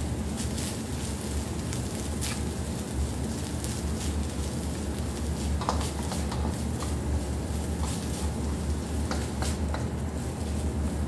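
Minced beef frying in a non-stick wok while a wooden spatula stirs and scrapes through it, with scattered light clicks of the spatula against the pan over a steady sizzle and low hum.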